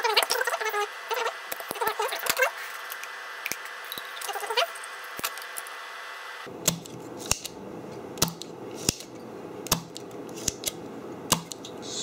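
Sharp clicks and taps of tools against a circuit board as the legs of a smoke detector's beeper are desoldered with a soldering iron and a desoldering pump. In the first two seconds there is also a wavering, voice-like pitched sound. About six and a half seconds in, a low steady rumble starts under the clicks.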